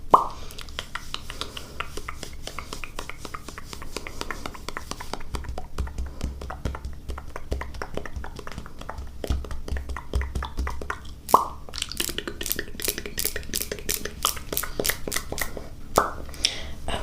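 ASMR mouth sounds close to the microphone: a dense run of small wet tongue and lip clicks, with three louder tongue pops, one at the start, one about two-thirds through and one near the end. In the later part the clicks settle into a steady rhythm of about three a second.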